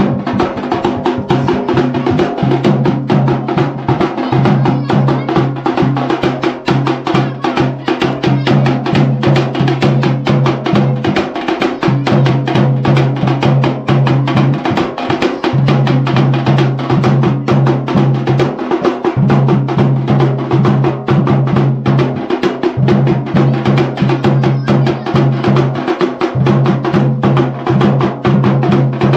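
Dhol and damau drums played in a fast, unbroken rhythm for a jagar, the drumming that calls the deities. A low tone holds beneath the strokes and breaks off every few seconds.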